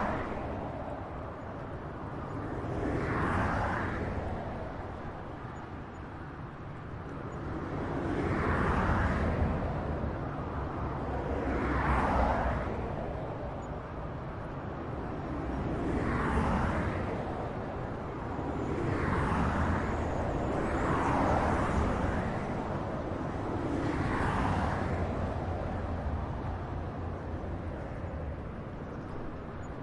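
Highway traffic: a steady low rumble with individual vehicles passing by one after another, each one swelling up and fading away, about seven passes in half a minute.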